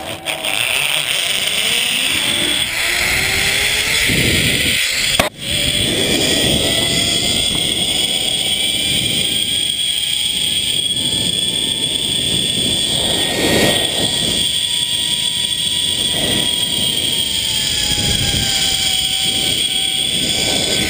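Zipline trolley pulleys running along a steel cable: a whine that climbs in pitch as the rider picks up speed over the first few seconds, holds steady, then drops near the end as the trolley slows. Wind rushes over the microphone throughout, and there is one sharp click about five seconds in.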